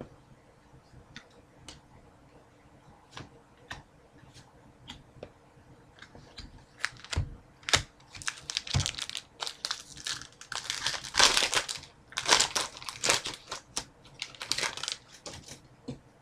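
Trading card pack wrapper being handled: light taps and card shuffling for the first several seconds, then the wrapper tearing open and crinkling loudly for several seconds.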